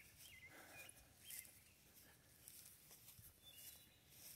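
Near silence with faint bird chirps: a few short, quick notes in the first second and a half.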